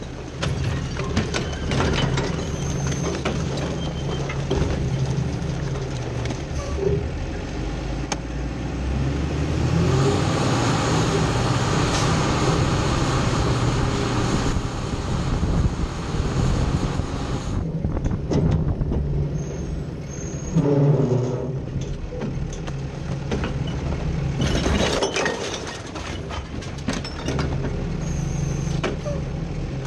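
Side-loading garbage truck (Heil Rapid Rail on an Autocar WX64) heard from inside its hopper: the engine runs steadily under scattered knocks and clatter of recyclables and the body. In the middle a louder rushing noise builds and then drops away, and a short hiss sounds near the end.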